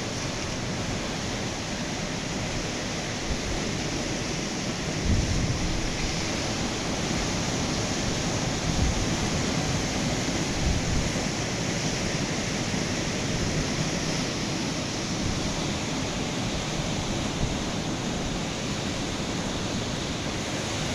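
Ocean surf breaking steadily on a sandy beach, with wind rumbling on the microphone and a stronger gust about five seconds in.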